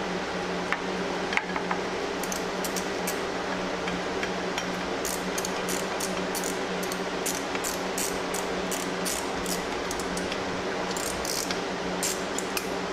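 Socket ratchet on a 10 mm socket clicking in short irregular runs, a few clicks a second, as the exhaust bolts are tightened, over the steady hum of a shop fan.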